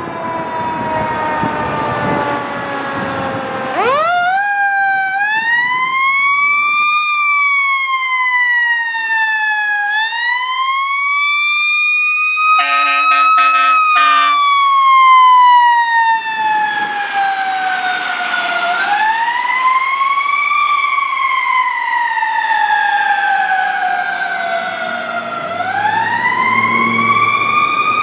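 Federal Signal Q2B mechanical siren on a 2015 KME fire engine, winding up and coasting down in long rising and falling wails. About halfway through, a burst of several short horn blasts cuts in over it.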